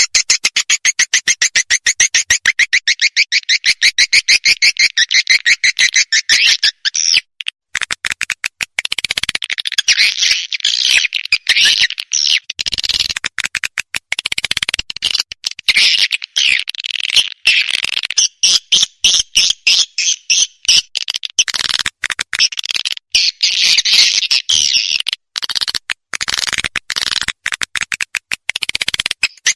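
Swiftlet call recording (a swiftlet-house lure call): a fast, continuous run of sharp, high chirps and twitters, with a few brief breaks.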